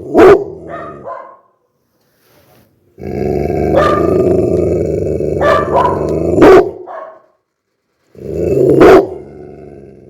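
Pit bull barking angrily. A bark comes just after the start; later a long low growl of about three and a half seconds ends in a sharp bark, and near the end another growl builds into a bark. Short silences separate the bouts.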